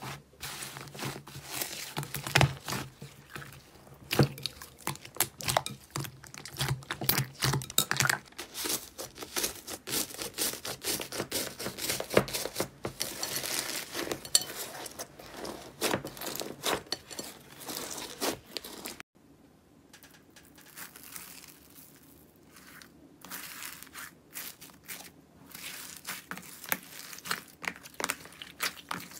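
Hands squeezing, poking and stretching slime, giving a dense run of small crackles and pops as air pockets in the slime burst. About two-thirds of the way in the sound drops off suddenly, and the crackling carries on quieter and sparser.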